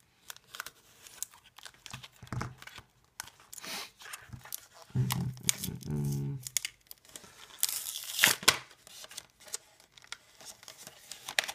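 Plastic blister packaging being cut with a folding knife and torn away from its cardboard backing, in repeated short tears and crinkles of plastic, loudest a little past the middle.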